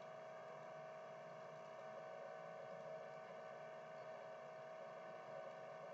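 Faint steady electrical hum with one steady mid-pitched tone over a low hiss: background room tone with nothing else sounding.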